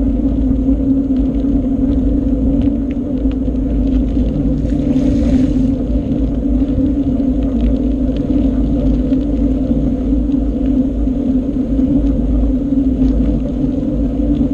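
Steady, loud rumble of a bicycle ride picked up by a GoPro Session, with road and wind noise and a constant low hum. A short hiss comes in about five seconds in.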